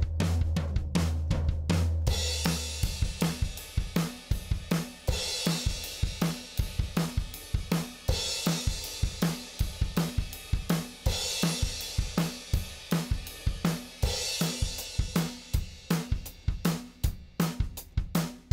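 Recorded drum kit playing a steady groove of kick, snare and hi-hat, with crash cymbals swelling in about every three seconds from about two seconds in, played as a demo through the elysia xpressor 500 compressor.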